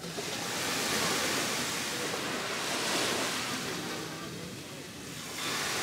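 Small waves washing onto a sandy beach: a steady hiss of surf that swells and eases, dipping about five seconds in and swelling again just after.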